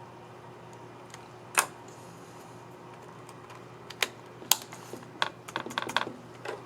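Dell Inspiron 5570 laptop keyboard's scissor-mechanism keys clicking as they are pressed. There is a single click first, then two more, then a quicker run of clicks near the end.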